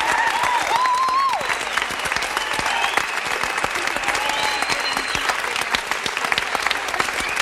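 Crowd clapping and cheering: a dense, steady patter of applause, with a few high cheering calls rising over it in the first second and a half and again about four to five seconds in.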